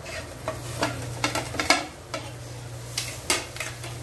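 A plate used as a lid lifted off a frying pan of yogurt-and-spice chicken pieces, with several clicks and scrapes, and the chicken sizzling lightly in the pan. A steady low hum runs underneath.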